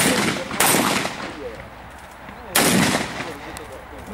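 Shotgun fired three times: two shots about half a second apart at the start, then a third about two seconds later, each dying away quickly.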